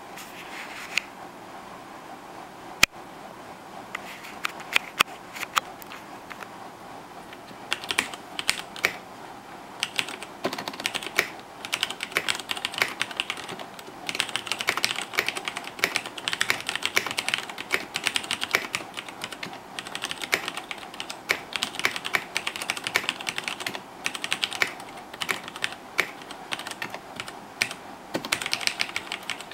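Typing on a KBC Poker mechanical keyboard with red linear switches and Ducky keycaps. A few scattered keystrokes come first, then fast runs of key clatter with short pauses.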